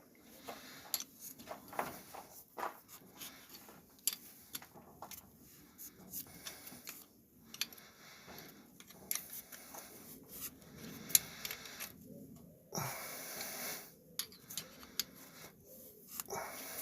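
Scattered clicks and light scrapes of hand tools working at the engine's stud hole, with one short hiss about thirteen seconds in.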